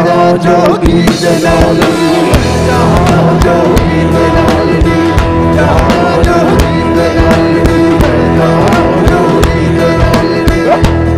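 Live band playing an instrumental passage: a drum kit keeps a steady beat under electric guitar and plucked string lute.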